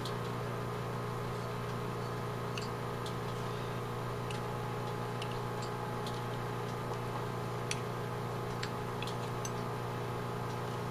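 Steady low electrical hum, with a few faint, scattered light clicks as the stripped Autolite 1100 carburetor body is handled and turned over.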